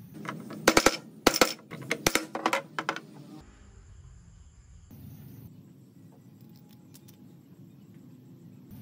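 A quick run of sharp metallic clicks and knocks, like small metal parts or tools being handled, in the first three seconds, then only a faint low hum.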